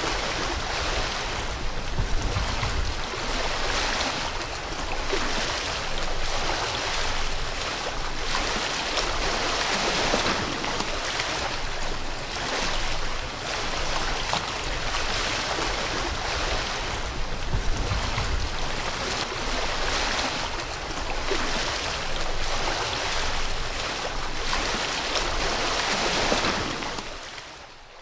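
A stormy river rushing steadily, a loud even wash of water. Wind buffets the microphone in low rumbles twice, and the sound fades out near the end.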